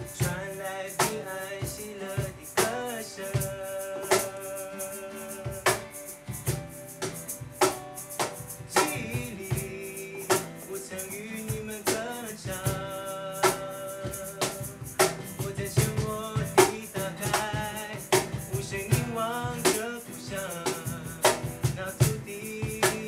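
Young men singing a song together, with acoustic guitar and hand percussion keeping a steady beat of about two strikes a second.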